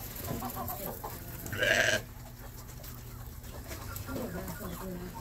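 Farmyard animals calling: one short, loud call nearly two seconds in, with softer, lower calls near the end.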